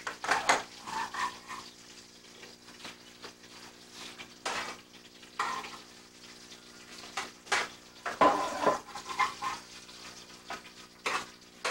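Metal pans and utensils clattering and knocking irregularly at a restaurant stove as cooked chicken breasts are lifted into pans, heaviest near the start and again about eight seconds in, over a faint steady hum.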